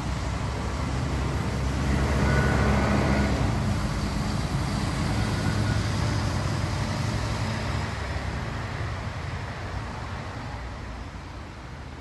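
Road traffic: cars driving past with engine rumble and tyre noise. One passes loudest about two to four seconds in, and the traffic then slowly dies down.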